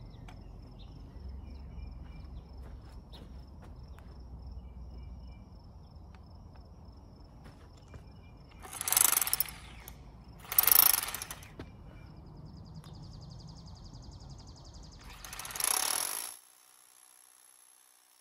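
Bosch GBH2-28L SDS-plus rotary hammer drilling a 3/4-inch hole into a rock boulder. A low steady drone is broken by three loud, harsh bursts of hammering of about a second each: two close together past the middle and one near the end, after which the sound cuts off sharply.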